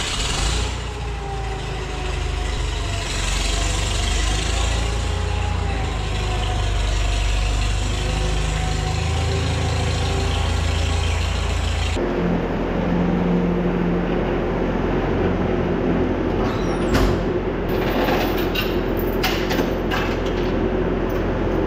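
Farmall Super MTA tractor's engine running as the tractor is driven, its pitch wavering slightly. About halfway through it cuts to a skid steer's engine idling steadily, with the metallic clinks of a tow chain being handled near the end.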